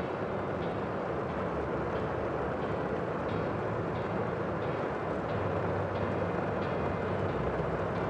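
Steady outdoor rushing noise, with faint high chirps repeating about every two-thirds of a second.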